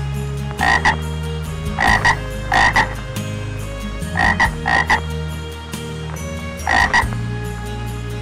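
An animal giving short double calls, six in all, at uneven intervals.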